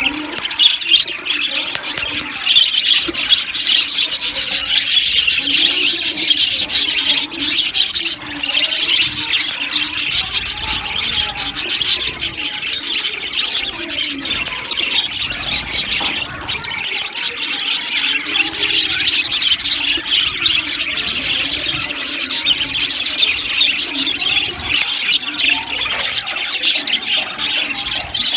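A flock of budgerigars chattering continuously, many birds chirping and warbling over one another in a dense, unbroken din.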